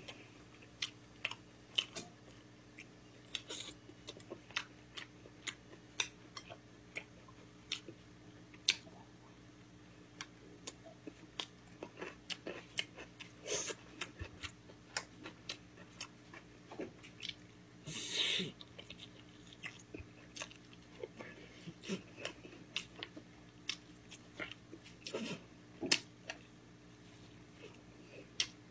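Close-miked mukbang eating of gamjatang, Korean pork-bone and potato soup: irregular chewing with many short wet mouth clicks and smacks. A few longer, louder bursts of eating noise stand out, the biggest about two thirds of the way through. A faint steady hum runs underneath.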